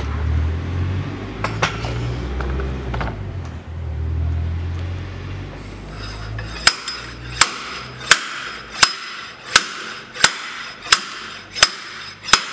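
A slide hammer on the rear axle shaft of a 1985 Isuzu Trooper, pulling the stuck shaft out of the axle housing. After a few seconds of low rumble and light clicks, the weight is slammed against its stop nine times, about once every 0.7 s: sharp metallic clanks that ring briefly.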